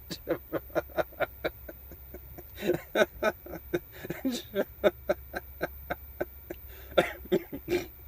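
A man chuckling and snickering to himself in short bursts, three runs of quick pitched chuckles a few a second, over a steady low hum.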